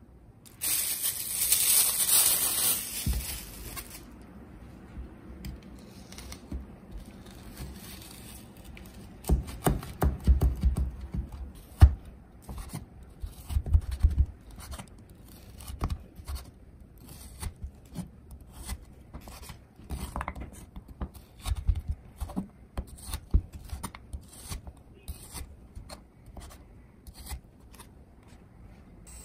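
A kitchen knife slicing raw beef on a wooden cutting board: a long run of short knocks as the blade meets the board, some of them heavier thuds. Near the start, about two seconds of loud rustling, tearing noise.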